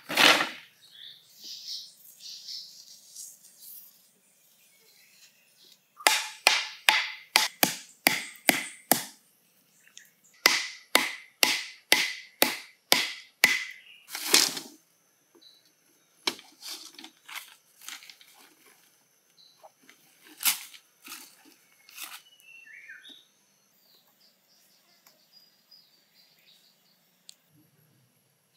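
Thin wooden stakes being pounded into earth with a wooden pole: runs of sharp wooden knocks, about three a second, then a few sparser knocks. A loud clatter of sticks at the start, and a bird chirps faintly near the end.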